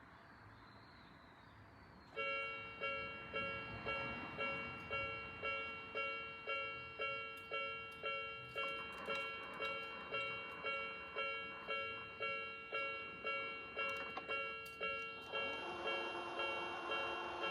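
Japanese railway level-crossing alarm of the Odakyu type, switching on about two seconds in and ringing a steady electronic ding just under twice a second, warning of an approaching train. About fifteen seconds in, further lower tones join the ringing.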